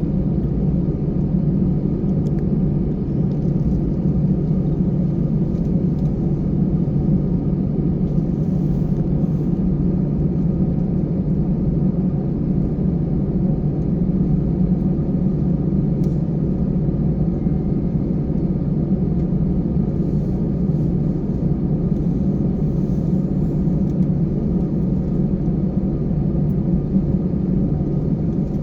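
Steady low rumble of a passenger airliner's cabin while the aircraft is on the ground, its engines or air system running at an even level with no take-off surge.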